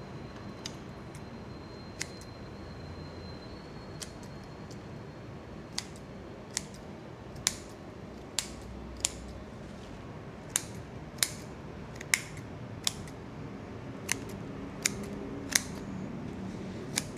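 Scissors snipping greenery stems on a hand-held flower bouquet: a series of sharp, separate snips, sparse at first and then coming about one a second, more than a dozen in all.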